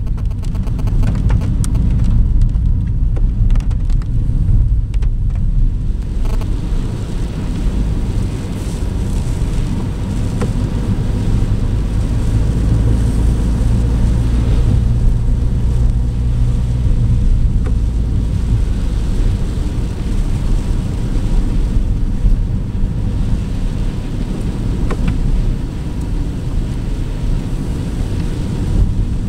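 Cabin noise of a 2010 Mini One diesel driving along a wet lane: a steady low engine and road rumble, with tyre noise from the wet road surface.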